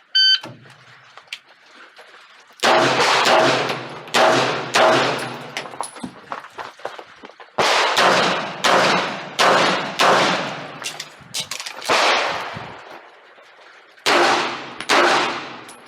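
A competition shot timer beeps once, then handgun shots come in three rapid strings with short pauses between them. Some shots are followed by a brief metallic ring, typical of steel targets being hit.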